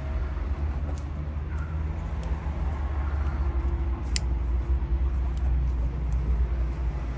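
Steady low rumble of street traffic, with a few sharp ticks over it: one about a second in and a louder one about four seconds in.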